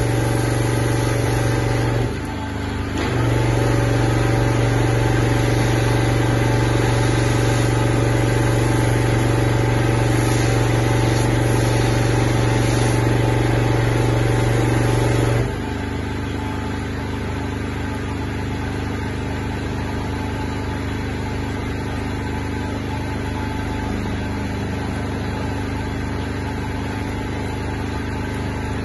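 A pressure washer's engine running steadily with a strong low hum while a flat surface cleaner works the roof tiles. It dips briefly about two seconds in, and about halfway through it drops to a quieter, lighter running sound.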